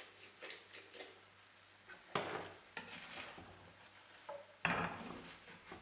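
A wooden spatula stirring liver pieces through cream simmering in a frying pan, with a light sizzle as the cream reduces. The stirring is louder for a moment about two seconds in and again near five seconds.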